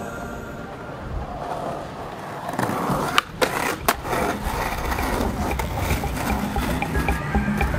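Skateboard wheels rolling on smooth concrete, growing louder partway through, with a few sharp clacks of the board striking the ground about three to four seconds in as flatground tricks are popped and landed.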